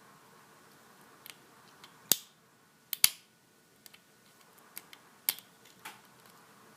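Metal lock picking tools clicking against a Master Lock 410 lockout padlock as the tension wrench and pick work in the keyway. About eight scattered sharp clicks, the two loudest a little over two and three seconds in.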